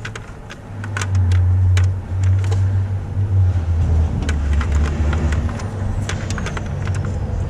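Quarter-inch ratchet with a 10 mm socket clicking in short irregular strokes as a crank sensor bolt is worked loose. Under it, a loud low mechanical hum, the loudest sound, starts about a second in, drops lower about four seconds in and fades out a little after five seconds.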